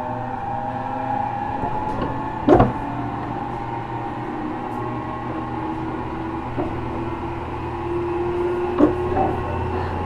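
Running noise heard inside a JR Kyushu 415 series 1500 subseries EMU motor car, a car noted for an unusual running noise: traction motor and gear whine of several tones drifting slowly in pitch over a low rumble. A loud clank about two and a half seconds in and smaller knocks later, typical of wheels over rail joints.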